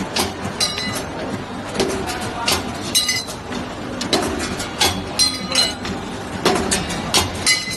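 Metal clanks and clinks at irregular intervals, about one or two a second, from a CNC box-tube cutting and punching machine at work; a few of the strikes ring on briefly like struck steel, over a steady workshop hum.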